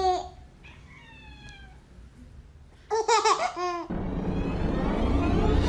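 Short bursts of high-pitched laughter-like vocal sounds, at the start and again about three seconds in, with a faint falling call between them. About four seconds in, a louder, steady noisy sound takes over.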